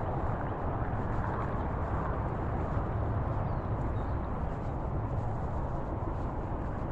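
Steady rumbling road and wind noise from riding an electric rental scooter along a city street, with no distinct events.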